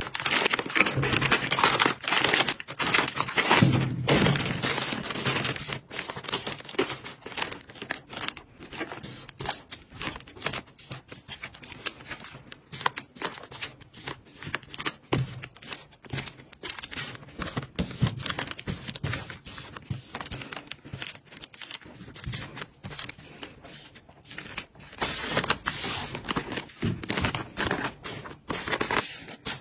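Plastic packaging crinkling and rustling as items are handled, with many small clicks and taps.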